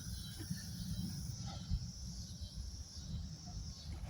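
Steady high-pitched insect chirring in the background over a low rumble, with one sharp click at the start.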